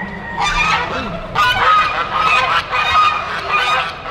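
Domestic geese honking loudly, a harsh run of honks that starts about half a second in and keeps going without a break.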